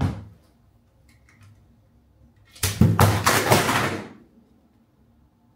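A brief bump at the start. Then, from near the middle, about a second and a half of loud crinkling and rustling as a cardboard cosmetics box (a Fenty Beauty primer box) is handled close to the microphone.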